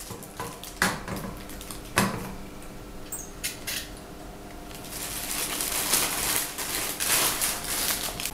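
Hard clicks and clinks as an eyepiece tube is pushed onto a slit lamp's microscope body, two sharp knocks about a second apart near the start. A few seconds of crinkling plastic wrap follow, from the bag around the eyepiece.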